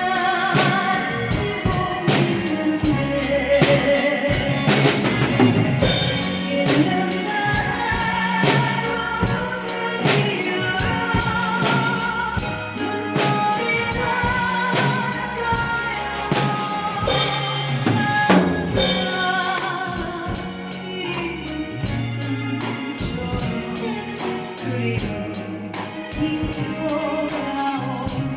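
Drum kit played along to a recorded song with a woman singing, the cymbal keeping evenly spaced strokes under the vocal line.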